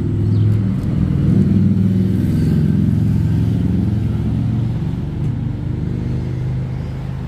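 A vehicle engine running close by: a low, steady drone that swells about a second in and then slowly fades.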